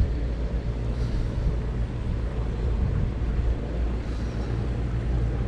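Small motorboat's engine running on the river, a steady low drone.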